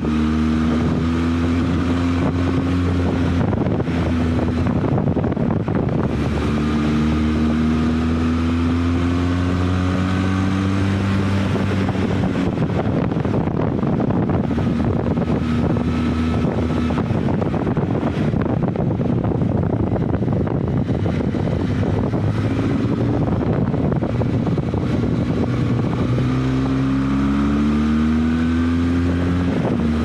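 Benelli TRK 502 X's parallel-twin engine running while riding, its pitch rising and falling several times with the throttle, with wind noise on the microphone.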